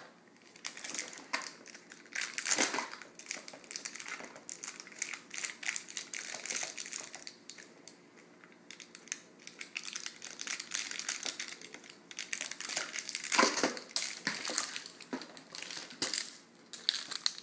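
Crinkling and crackling of plastic handled by a baby: many small rapid crackles with short lulls, busiest a few seconds before the end.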